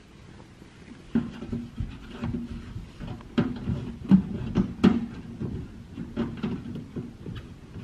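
Irregular knocks, clicks and rustling as a wooden door-jamb shim carrying a plastic wire chafe ring is worked through a hole in drywall into a metal wall stud.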